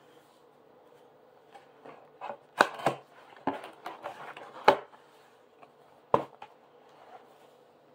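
Cardboard tea box being opened by hand: the top flap is pried and pulled up with rustling cardboard and several sharp snaps and knocks between about two and six seconds in.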